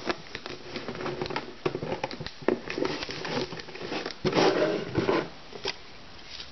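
A USPS Priority Mail cardboard box being folded into shape by hand: irregular creaks, taps and rustles of the cardboard flaps, with a louder scraping rustle about four seconds in, then quieter near the end.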